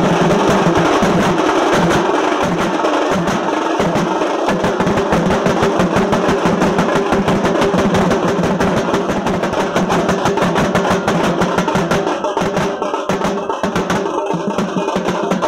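Dhol-tasha ensemble playing: barrel-shaped dhols and tasha drums beaten with sticks in a fast, dense, unbroken rhythm, the tashas rattling off rapid rolls.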